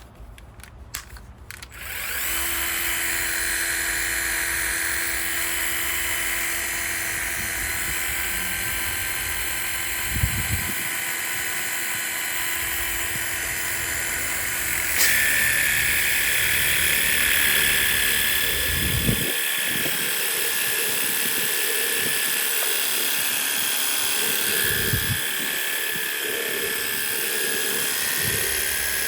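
Battery-powered portable pressure washer starting about two seconds in and running steadily, its small pump motor whirring with water spraying. The sound changes and grows a little brighter about halfway through.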